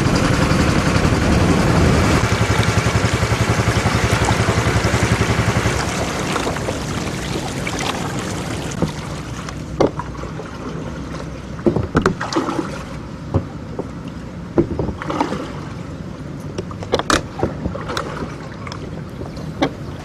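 Small wooden river ferry boat under way: a loud, steady motor-and-water noise that drops away about six seconds in. After that the sound is quieter, with scattered sharp knocks.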